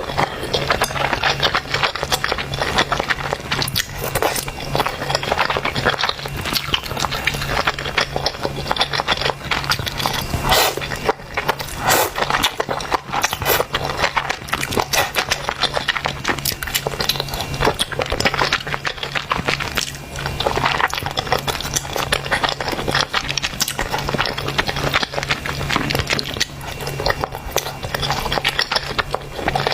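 Close-miked eating of spicy noodles: slurping and chewing in a dense, unbroken run of wet clicks and smacks, over a steady low hum.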